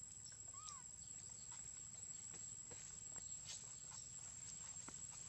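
Faint sounds of a ripe jackfruit being cut and picked apart by hand with a small knife: a few soft scattered clicks and sticky handling noises, over a steady thin high whine.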